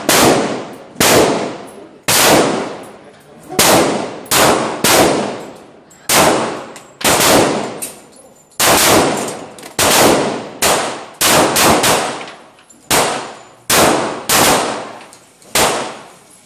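Handgun fired in a steady string, about one to two shots a second, each sharp crack ringing off in the echo of an indoor shooting range.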